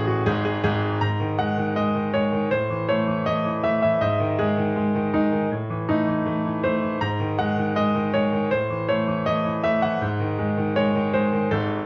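Background music led by piano, with a steady run of notes over a sustained low bass.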